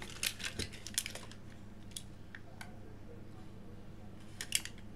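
Scattered light clicks and rustles of a small cardboard box and plastic blister pack of vape coils being handled. The clicks are busiest in the first second or so, thin out, then come again in a short cluster near the end.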